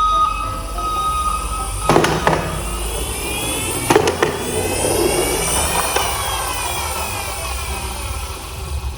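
A vehicle engine sound that rises and then falls in pitch over a few seconds, with sharp knocks about two and four seconds in.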